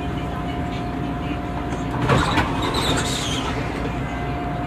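Running noise inside a 1992 Morrison-Knudsen 3200-series rapid-transit car with General Electric traction motors: a steady rumble of wheels on rail with a steady thin whine. About two seconds in, a louder, higher-pitched burst of rail noise lasts about a second and a half.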